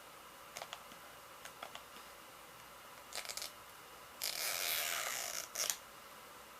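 Plastic toy packaging being handled: a few light clicks and taps, then about a second of crinkling plastic wrap, then one more short crinkle near the end.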